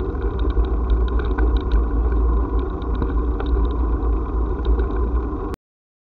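Wind rumbling on the microphone of a camera mounted on a bicycle riding over brick paving, with light rattling clicks from the bumps. The sound cuts off suddenly about five and a half seconds in.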